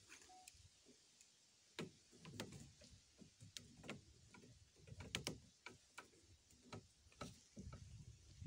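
Near silence broken by faint, irregular clicks and soft low thumps.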